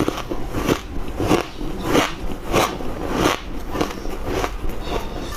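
Close-miked biting and crunching of squeaky ice: a run of sharp, crisp crunches, about two a second.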